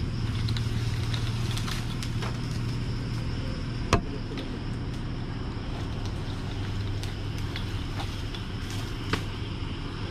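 Steady low hum of an idling engine, with scattered sharp crackles and snaps from a burning hornet nest; one loud snap comes about four seconds in.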